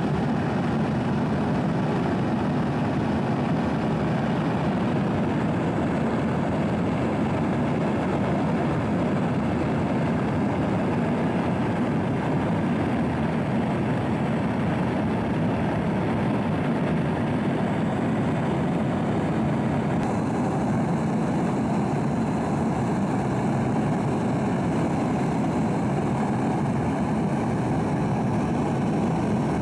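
Steady engine and airflow drone of a news aircraft in flight, heard from on board: an even, unbroken rushing noise.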